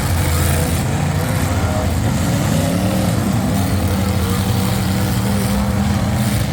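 Demolition derby cars' engines running and revving together, one engine revving up about two and a half seconds in.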